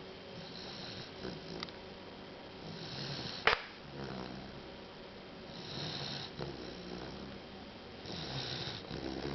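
A chocolate Labrador puppy snoring in its sleep, a slow rhythm of snoring breaths about every two and a half seconds. A single sharp click stands out a little past a third of the way in.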